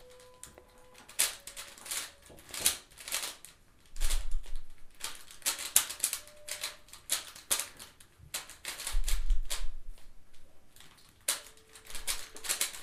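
QiYi WuQue 4x4 speed cube being turned by hand during a solve: quick bursts of plastic clicking and clacking as the layers move, separated by short pauses, with a couple of dull bumps. The cube is set up loose out of the box and turns smoothly.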